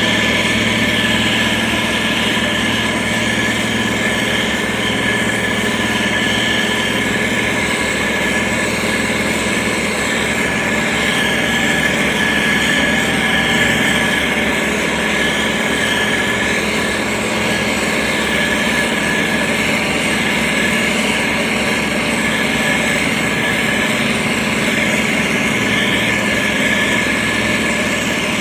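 SANY STG190C-8S motor grader's diesel engine running steadily as the machine works soil, with a constant high whine over the engine note.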